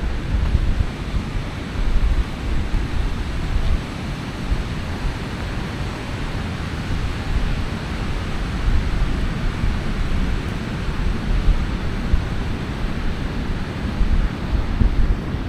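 Ocean surf washing steadily onto the beach, with wind buffeting the microphone in low gusty rumbles.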